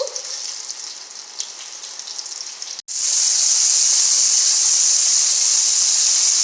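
Battered cauliflower frying in hot grapeseed oil: a crackling sizzle. After a sudden break about three seconds in, it gives way to a much louder, even, steady sizzle.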